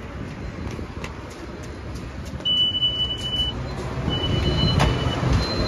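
Low, steady rumble of traffic noise. Two steady, high electronic beeps about a second long each sound near the middle.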